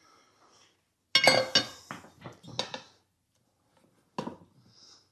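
Metal tire iron clinking and clanking against the rim of a riding-mower wheel on a manual tire changer: a cluster of ringing metallic clinks about a second in, then one more clink near the end.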